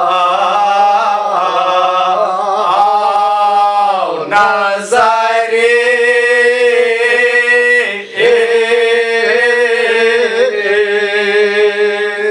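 A man's unaccompanied voice chanting a Kashmiri Muharram elegy (mazmoon) in long held, slowly wavering notes, with short breaks for breath about 4 and 8 seconds in.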